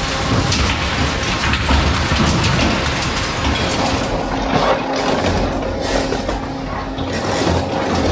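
SSI M180 dual-shear two-shaft shredder tearing through a crushed truck: continuous crunching and cracking of sheet metal, with a dense run of sharp knocks over a low machine rumble.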